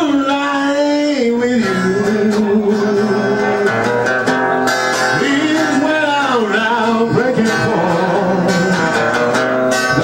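A man singing long held notes into a microphone over a strummed acoustic guitar.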